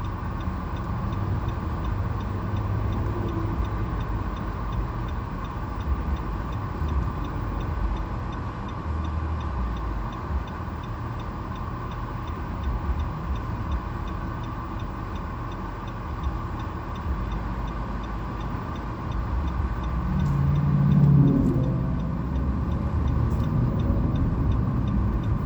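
Car running, heard from inside the cabin: a steady low engine and road hum, swelling louder for a couple of seconds about twenty seconds in.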